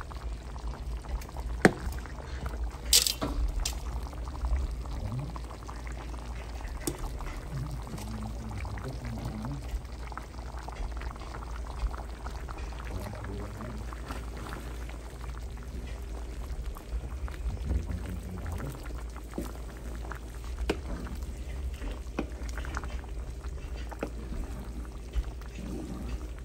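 Black glutinous rice simmering in coconut milk in an aluminium pan, bubbling steadily while a wooden spatula stirs it. A few sharp knocks of the spatula against the pan, the loudest about two and three seconds in.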